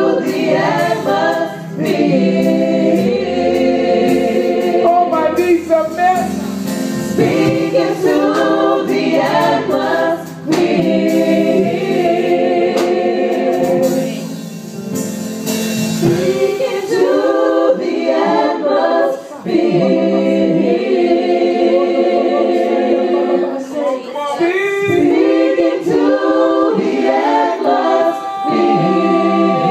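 Gospel praise team singing in harmony into microphones, several voices together in sustained, swelling phrases with short breaks between lines.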